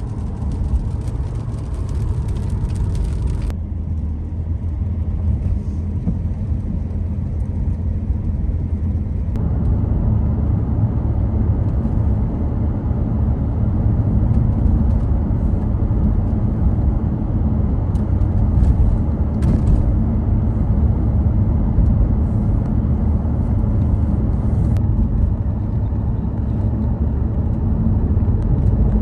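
Car driving on a wet road, heard from inside the cabin: a steady rumble of engine and tyre noise, with a high hiss for the first few seconds, growing a little louder about ten seconds in.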